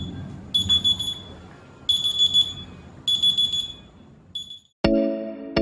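Smartphone alarm going off: a high-pitched beep repeating about every second and a quarter. Near the end the beeping cuts off and music with struck chords begins.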